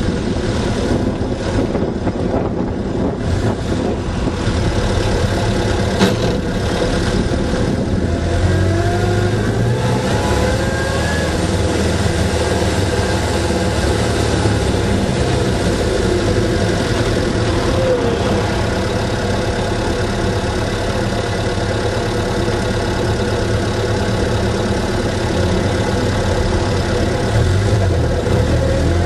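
Austin Seven's small four-cylinder side-valve engine running steadily as the car drives along, with a few short whines that slide up and down in pitch. A single sharp knock comes about six seconds in.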